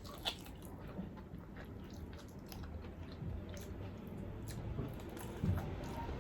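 A person chewing food close to the microphone, with many small scattered mouth clicks and a sharper click about a quarter second in.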